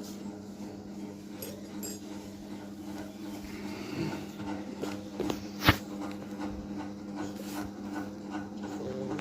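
Beagle puppy snoring softly, a faint rasping breath over a steady low hum. A single sharp click sounds about halfway through.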